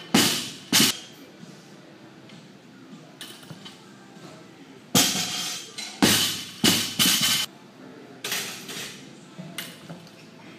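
Loaded barbell and weight plates clanking in sharp metallic knocks during repeated snatches: two just after the start, a quick run of four about halfway through, then lighter knocks.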